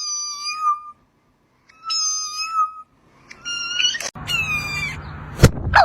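Cat meowing: four drawn-out, high meows, the last two close together. A sharp knock comes near the end.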